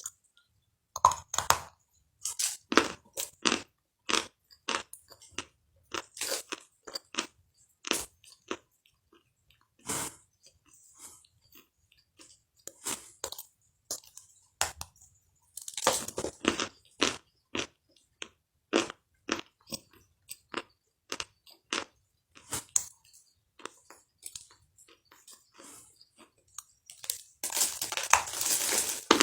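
Close-up biting and chewing of crunchy food: a series of crisp crunches at irregular intervals, with a longer, denser stretch of crunching near the end.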